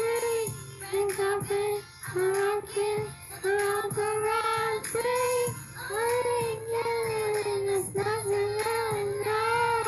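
A girl singing into a microphone over a recorded backing track, in phrases of long held notes broken by short breaths.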